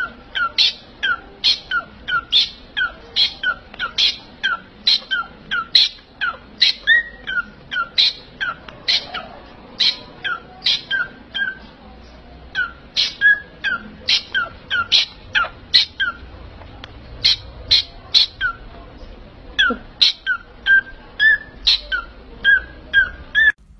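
A cockatiel calling over and over, about two short calls a second, each one falling sharply in pitch.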